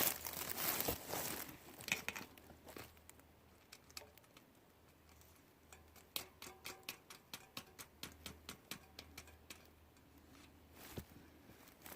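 Rustling handling noise, then a run of light, evenly spaced clicks, about three a second, from a hand pump being worked to inflate a patched tubeless mountain bike tire.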